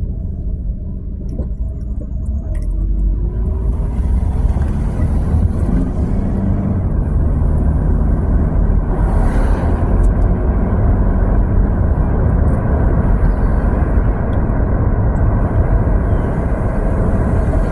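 A car driving along a road: a steady low rumble of tyres and engine that grows louder a few seconds in. An oncoming truck passes with a brief hiss about nine seconds in.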